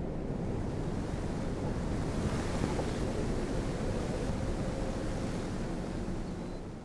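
Steady rushing wind, starting to fade out near the end.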